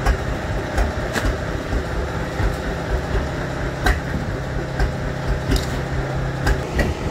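An engine running steadily with a low hum, cutting out near the end, over scattered knocks and clatter from gear being handled on a wooden boat.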